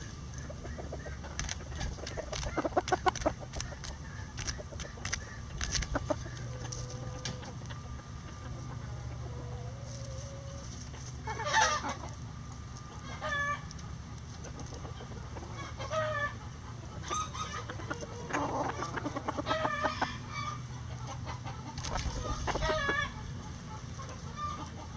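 Bantam chickens clucking in short calls, scattered through the second half, with sharp taps of beaks pecking at a hanging vegetable treat, mostly in the first few seconds.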